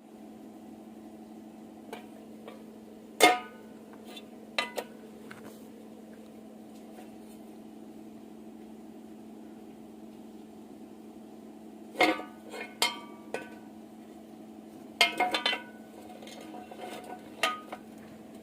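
Thin steel angle-iron pieces clinking and clanking against metal as they are handled and set in place, a few scattered knocks with short ringing, over a steady low electrical hum; no arc welding is heard.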